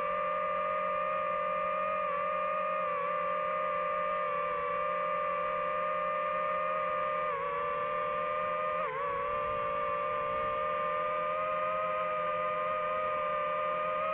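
DJI FPV drone's motors and propellers whining at a steady pitch in flight, dipping briefly twice about seven and nine seconds in.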